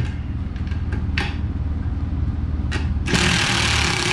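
Cordless drill/driver starting up about three seconds in and running on a stainless nylock nut, set to its lowest clutch setting to tighten it until it stops. Before that, a steady low hum with two light metallic clicks from handling the wrench and rods.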